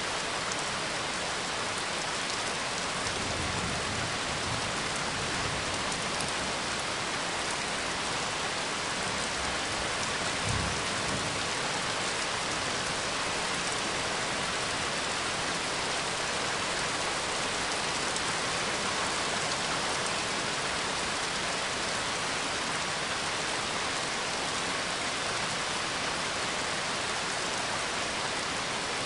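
Recorded rain falling steadily, with low rumbles of thunder a few seconds in and again about ten seconds in.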